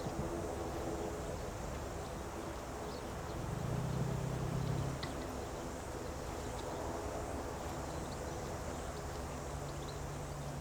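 Outdoor ambience: a steady hum of distant traffic, with a low engine drone swelling briefly about four seconds in and a fainter one near the end.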